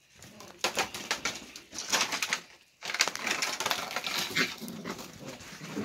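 Sheltie puppies' paws and claws clicking and scrabbling on wooden deck boards as they scamper and play. The sound comes in two busy stretches with a brief pause about two and a half seconds in.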